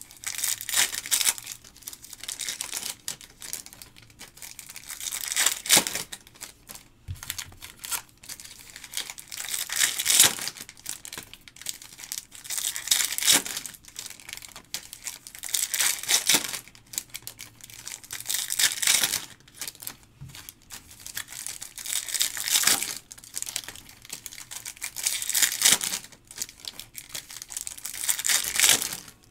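Trading card pack wrappers crinkling and tearing as Topps Stadium Club Chrome packs are opened and handled. Bursts of crackling come every three to four seconds.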